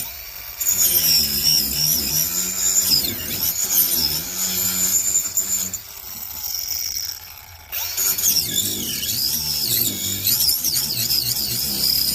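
Reloive 16V cordless 3-inch mini angle grinder with a wood-cutting blade, cutting into wood, its motor pitch wavering under load. About six seconds in the sound drops away for a moment and then the cutting resumes.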